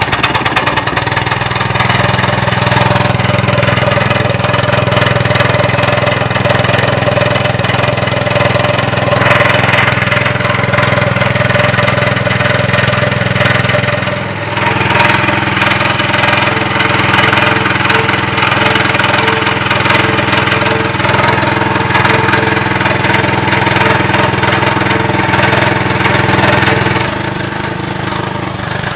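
A tractor's diesel engine running steadily with a low clattering note. It dips briefly about halfway through and runs quieter near the end.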